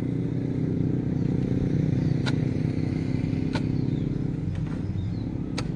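A small engine running steadily, with digging tools (a steel bar and hoes) striking stony soil in a trench, giving three sharp clinks about a second or two apart.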